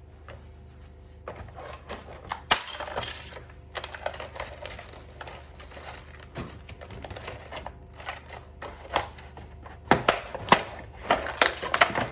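Irregular sharp cracks, clicks and scraping as a moulded carbon-fibre mudguard is prised and worked free of its mould. The cracking comes in a dense, loud cluster near the end.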